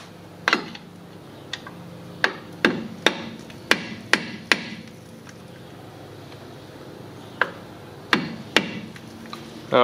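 Hammer striking a long steel punch set against the staked collar of a CV axle nut: about a dozen sharp metal-on-metal taps with a short ring, a run of eight, a pause of a few seconds, then four more. The blows straighten the flattened, staked spot on the nut so it can be turned loose.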